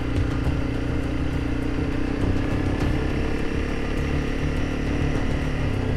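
Honda CRF300 Rally's single-cylinder engine running steadily as the motorcycle is ridden along a dirt road.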